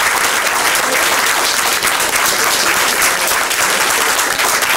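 An audience applauding, a dense steady clapping.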